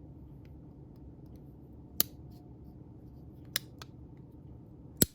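Parts of a Civivi Aquila folding knife clicking sharply as it is reassembled by hand: three crisp metallic clicks about a second and a half apart, the loudest near the end, with a fainter tick just after the second.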